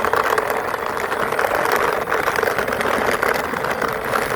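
Toy ambulance being pushed by hand along a surface, its wheels whirring steadily with a fine, even rattle.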